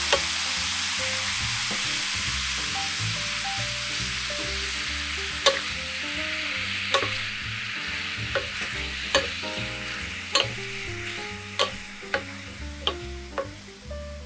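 Chicken pieces sizzling in a hot pan. The frying hiss starts suddenly, as the chicken goes in, and slowly eases off. From about five seconds in, a utensil clicks against the pan now and then as the pieces are stirred.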